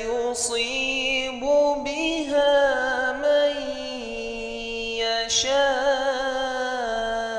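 A solo voice reciting the Quran in melodic tajweed style, drawing the words out into long held, ornamented notes that waver and slide in pitch. Two short sibilant hisses break in, about half a second in and about five seconds in.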